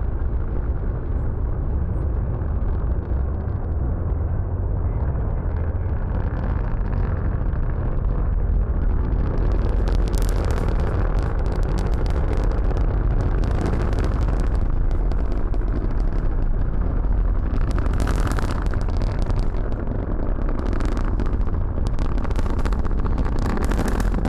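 SpaceX Falcon 9 rocket at liftoff and climb, its nine first-stage Merlin engines making a loud, deep, continuous rumble. Sharp crackling comes in about ten seconds in and carries on.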